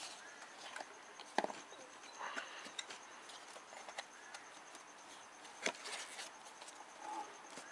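Light clicks and scattered knocks of tools and parts being handled, with two sharper knocks, one about a second and a half in and one near six seconds.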